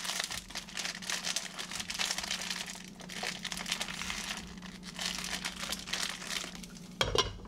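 Plastic food pouch crinkling in crackly bursts as it is squeezed and shaken to empty sauced chicken feet into a frying pan, with a louder thump near the end.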